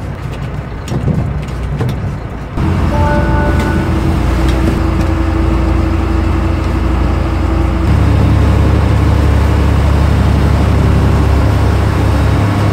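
Fishing boat's engine running under way, a loud steady drone with rushing water and spray. It gets sharply louder about two and a half seconds in and again near eight seconds, as the boat picks up speed.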